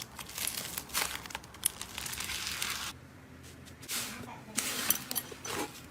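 Slime being pressed and pulled by hand, making crackling, popping sounds. There is a lull about three seconds in, and the crackling picks up again near the end.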